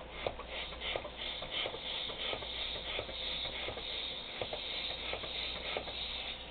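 A hand balloon pump worked in quick, even strokes, each stroke a short rush of air into a long twisting balloon as it inflates.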